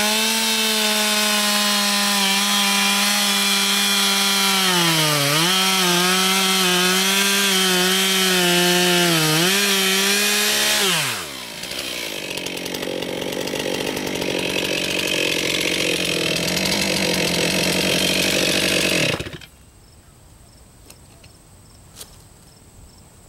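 Stihl 441 Magnum two-stroke chainsaw running at high revs with a steady high pitch that dips briefly twice. About eleven seconds in the pitch falls away into a rougher, lower running sound, which cuts off sharply a few seconds before the end.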